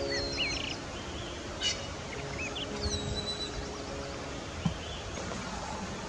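Small wild songbirds chirping and whistling in short calls, a few quick whistled glides and a rapid trill in the first half, over a steady outdoor hiss. A single brief low thump about three quarters of the way through.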